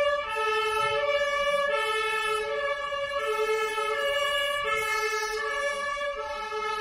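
German two-tone emergency siren (Martinshorn) on a red-and-white fire-brigade ambulance, switching evenly back and forth between a lower and a higher note about every two thirds of a second.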